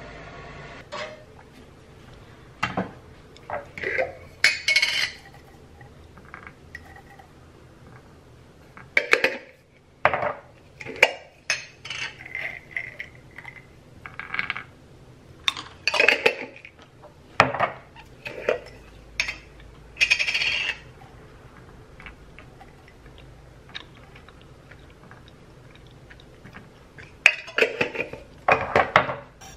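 Glass jars of nuts and other containers handled on a kitchen counter: scattered clinks, knocks and rattles, with nuts tipped out onto a wooden cutting board. The clatter comes in bursts with a quieter pause before a last cluster near the end.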